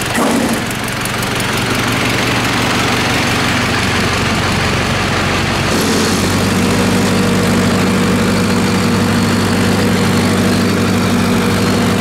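Freshly rebuilt farm-tractor diesel engine running steadily. About six seconds in, the sound changes abruptly to a steadier, more even engine note.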